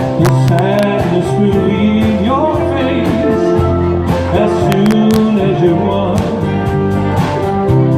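Background music: an instrumental passage of a country-style song with guitar.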